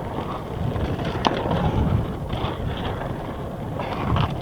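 Mountain bike riding down a dirt trail: rough tyre noise with wind rumbling on the microphone, and a sharp knock about a second in.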